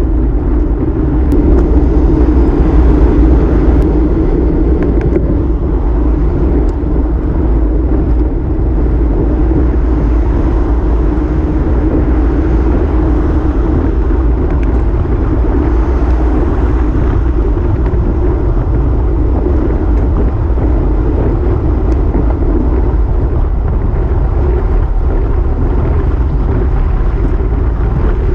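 Steady wind buffeting and road rumble on a bike-mounted camera's microphone as a road bike rolls along a highway shoulder. The noise swells for a couple of seconds near the start.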